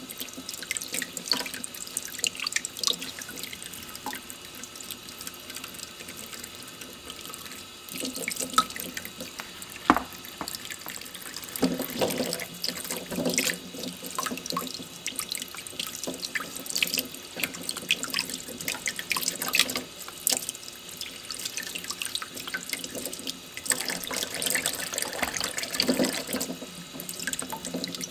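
A thin stream of tap water running into a stainless steel sink while fresh chicken eggs are rubbed clean by hand under it. Frequent small clicks and splashes come through as the eggs are handled.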